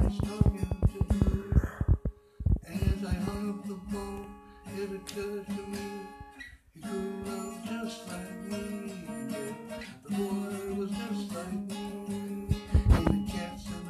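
Acoustic guitar strummed and picked in steady chords, with brief breaks about two seconds in and again near the middle, and a hard strum near the end.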